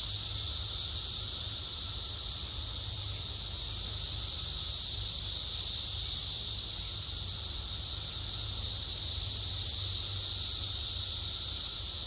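Chorus of 17-year periodical cicadas: a steady, unbroken high-pitched droning buzz from many insects calling together in the trees, with a low rumble underneath.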